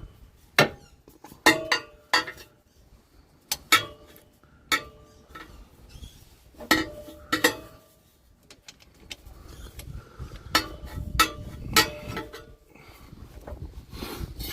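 Hand tools clinking and knocking on metal: a ratchet and socket being worked onto and around a bolt under a vehicle's underbody in a cramped space. About a dozen irregular sharp metallic knocks, some ringing briefly.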